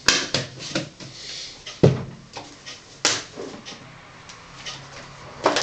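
Plastic food containers being handled on a kitchen table: light clicks and knocks of lids and boxes, a loud thump of a container set down just under two seconds in, and a sharp click about three seconds in.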